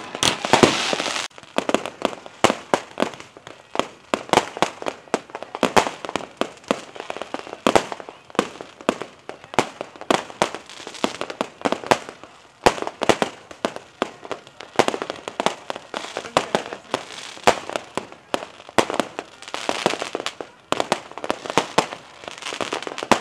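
Aerial fireworks going off: an uneven, rapid string of sharp bangs and pops, with busier stretches near the start and around twenty seconds in.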